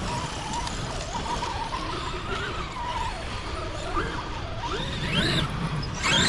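Brushless electric motor whine of an X-Maxx RC truck running a Hobbywing Max5 800kV system, its pitch rising and falling with the throttle over a low rumble. The truck revs up sharply about five seconds in and again, louder, at the end.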